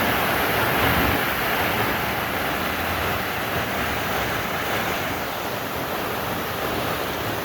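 Waterfall pouring into a swollen, fast-running river, making a steady, even rush of water.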